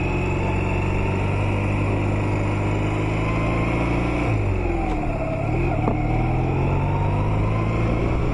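2008 Honda Nighthawk 250's air-cooled parallel-twin engine running steadily under way; about four seconds in the engine note dips and then climbs back.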